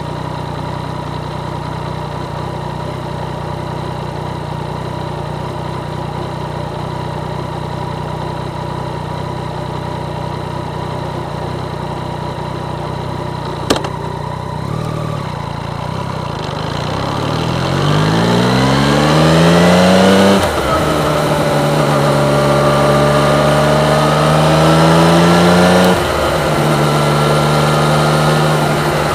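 Yamaha MT-09's three-cylinder engine idling steadily, with a sharp click about halfway through. It then pulls away: the revs rise, drop at a gear change, rise again and drop at the next change.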